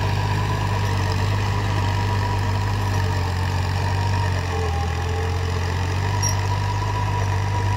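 Sonalika 20 hp 4x4 compact tractor engine running steadily under load while driving a rotavator through the soil. It is a steady low drone that dips slightly about halfway through.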